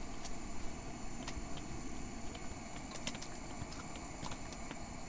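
Steady low hum with scattered light clicks and taps, several close together about three seconds in, from short ice-fishing rods and gear being handled.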